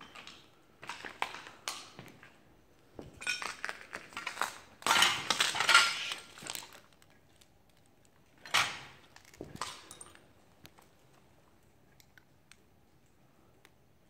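Footsteps crunching and scraping over broken glass and debris on a hard floor, with clinks of glass in several bursts; the loudest crunching comes about five to six seconds in, then it goes quiet apart from a few faint ticks.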